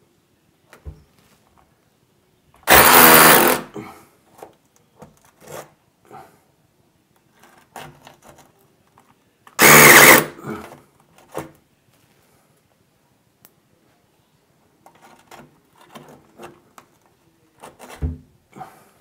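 Cordless SDS hammer drill (Worx WX390) driving an 8 mm masonry bit into plaster over hard old brick. It runs in two short bursts of about a second each, several seconds apart, with a few faint clicks and knocks between them.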